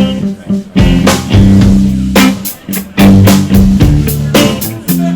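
Rock band playing live: a loud, stepping bass line with drums.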